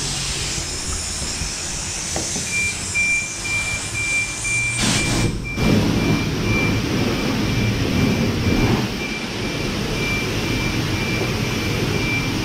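High-pressure car wash wand spraying water against a vehicle's side, a steady rushing spray that briefly breaks and comes back stronger about five seconds in. Through it, a high beep repeats steadily from about two seconds in: the self-serve bay's warning that the paid time is running out.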